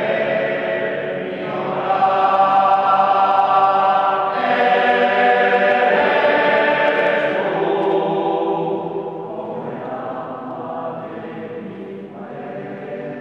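Mixed choir of men and women singing a cappella, holding full chords that shift to new ones every few seconds, then growing softer over the last few seconds.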